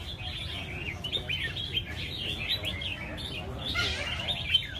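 Several caged red-whiskered bulbuls (chào mào) singing against each other, their quick chirping phrases overlapping without pause, over a low steady rumble.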